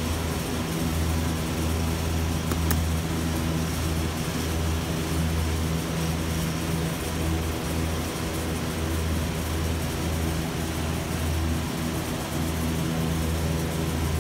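Machinery running with a steady low hum that swells and fades slightly, under a constant hiss. There is a single click about three seconds in.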